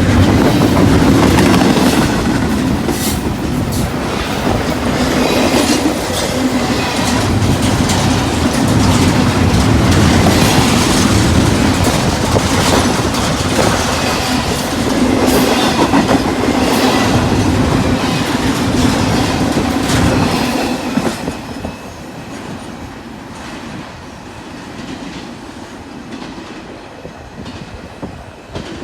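CSX freight train cars rolling past, the wheels clicking steadily over rail joints. About two-thirds of the way through, the sound drops off and carries on at a lower level.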